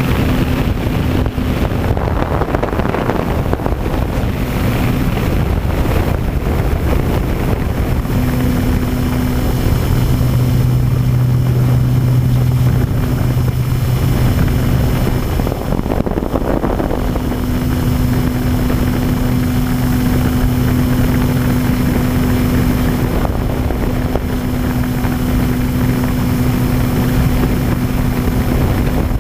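Electric motor and propeller of an E-flite Apprentice RC trainer plane running in flight, a low hum that strengthens and fades with the throttle, over a steady rush of wind on the onboard microphone.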